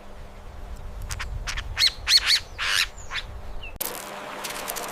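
Chipmunk chirping: a few quick, high, sharp chips in the middle, over a low outdoor rumble. It cuts off abruptly about four seconds in and gives way to a steady hiss with faint clicks.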